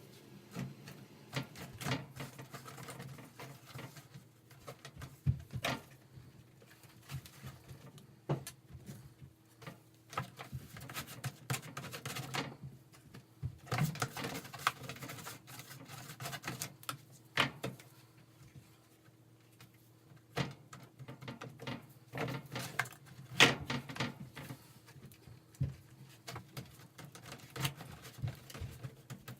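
Irregular small taps, clicks and scrapes of hand work: fiberglass resin being stirred in a cup and cloth strips being laid and wetted out with a brush, over a faint steady hum.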